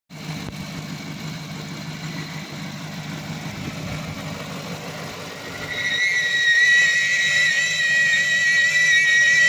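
2007 Cadillac Escalade's 6.2-litre V8 idling cold, with a high, steady whistle setting in about five and a half seconds in and becoming the loudest sound, wavering slightly in pitch. The whistle is one that the owner says comes on when the engine is cold.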